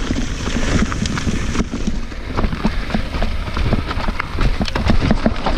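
Mountain bike riding over rough dirt trail: tyres crunching on dirt while the chain, frame and suspension rattle and knock rapidly and irregularly over roots and rocks, over a steady low wind rumble on the microphone.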